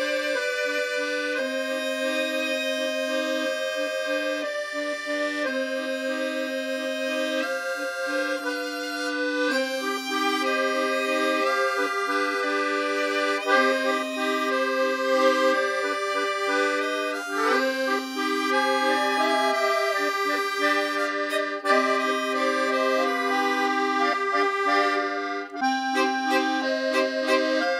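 Accordion music in French musette style: a melody of held reedy notes moving over sustained low notes.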